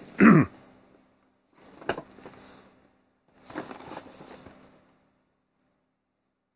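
Cardboard retail box handled by hand on soft bedding, with a short loud sound right at the start. About two seconds in there is a sharp tap, and from about three and a half seconds in comes a stretch of papery rustling as the box is lifted and turned over. Then it goes quiet.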